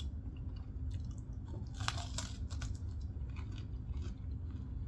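Close-miked chewing and biting of pork potstickers: wet mouth smacks and small crunches, loudest about two seconds in, over a steady low hum.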